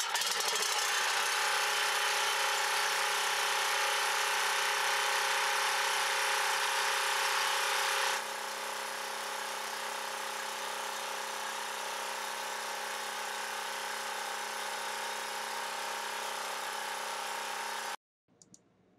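Champion 3550-watt portable generator's 224cc single-cylinder engine running steadily on its first start after a carburetor replacement. Its sound drops to a lower, quieter level about eight seconds in, then cuts off abruptly near the end.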